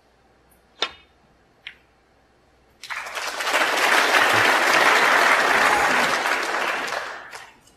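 Two sharp clicks of snooker balls, the first under a second in and the second just under a second later, then audience applause that swells and fades away over about four seconds.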